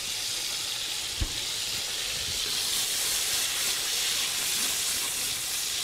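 Zucchini and carrot slices frying in butter in a pan, a steady sizzling hiss, with one dull knock about a second in.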